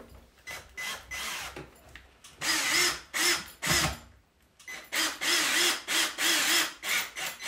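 Worx 20V cordless drill-driver running in a series of short bursts, driving a screw through a metal curtain-rod bracket into a wall plug. Its motor whine wavers under load and stops briefly between bursts.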